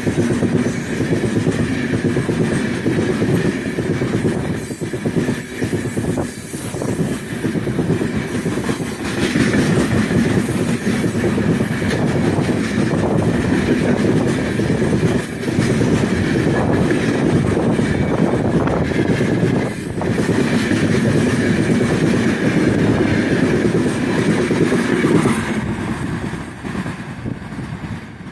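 Heavy loaded freight train's wagons rolling past, a steady rumble of steel wheels with clattering over the rail joints. It fades a little near the end.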